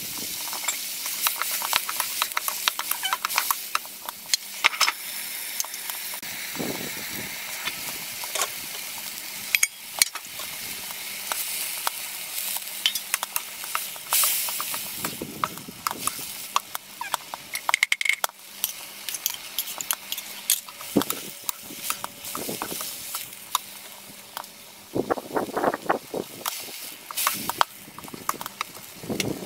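Vegetables stir-frying in a black steel wok: a steady sizzle with the scraping and clatter of a wooden spatula turning them against the pan.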